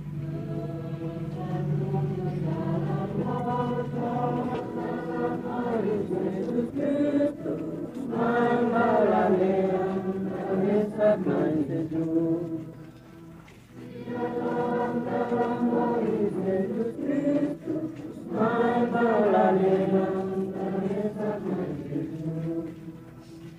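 A crowd singing together in slow, drawn-out phrases: two long phrases with a short break about halfway.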